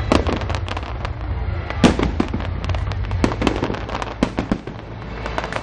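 Fireworks display: a rapid string of bangs and crackling bursts, several a second, over a low rumble, thinning a little near the end.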